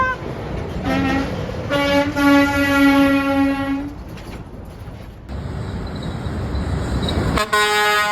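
Truck horns blowing: a brief toot about a second in, then a long steady blast of about two seconds. Engine and road noise from a passing truck follow, and another horn blast starts near the end.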